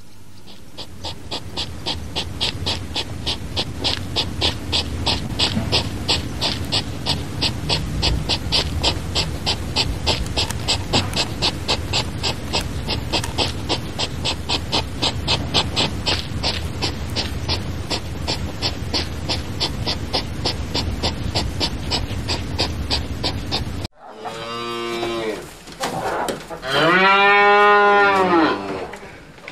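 A hedgehog sniffing and snuffling in a fast, even rhythm of about four short huffs a second. Near the end, a Highland cow moos twice, the second moo long and loud with a rise and fall in pitch.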